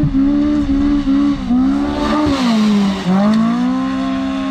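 Two-stroke engine of a snow-tracked Can-Am Maverick X3 side-by-side running at high revs. Its pitch dips briefly a few times, falls about two seconds in, then climbs back a second later and holds.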